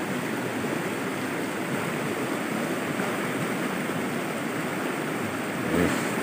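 Steady rush of a muddy river swollen with floodwater, flowing fast over and around rocks.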